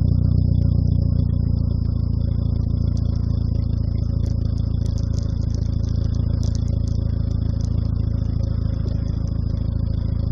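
Mitsubishi Airtrek Turbo's turbocharged four-cylinder idling steadily through a Borla exhaust with a single resonator, fitted from the downpipe back. It makes a deep, even rumble with no revving, and a few light ticks in the middle.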